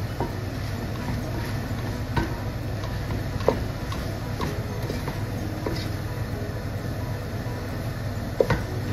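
Wooden spoon stirring and scraping diced beef tripe and offal in a stainless steel pot, with a few sharp knocks of the spoon against the pot, over a steady low rumble.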